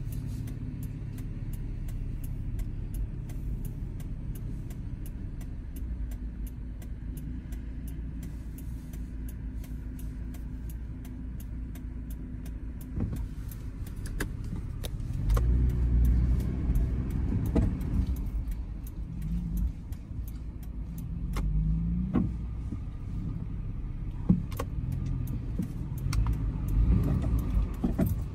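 A pickup truck heard from inside the cab: the engine runs with a steady low hum at first, then about halfway through the truck drives on and the rumble grows louder and more uneven, with the engine note rising a couple of times.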